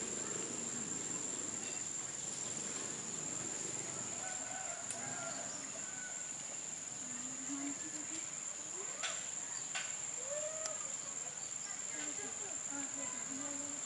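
A steady, unbroken high-pitched insect drone, cricket-like. Scattered short pitched calls sound over it, among them a rising-and-falling call about ten seconds in.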